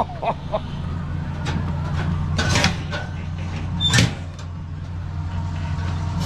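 Steady low engine hum, with short sharp hissing bursts about two and a half and four seconds in, the compressed-air blasts of an apple cannon firing.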